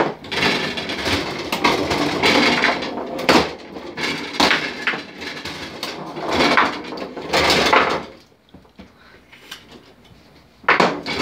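Foosball game in play on a wooden-framed table: rods sliding and spinning, with plastic players striking the ball and the ball knocking against the table's sides in a fast clatter. The clatter thins out after about eight seconds, then one sharp knock comes near the end.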